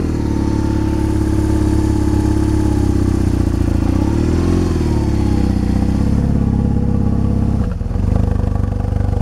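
BMW R 1200 GS Adventure boxer-twin engine idling steadily after a cold start at −12 °C. About four seconds in it is revved briefly once, rising and falling back to idle.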